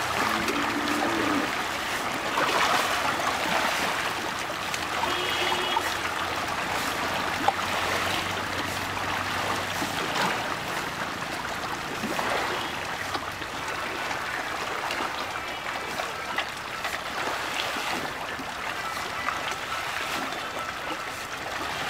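A dense crowd of fish churning and splashing at the pond surface as they feed, a continuous rushing splash of broken water.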